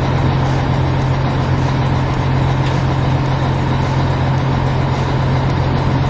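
Heavy vehicle engine running steadily at an even, low pitch.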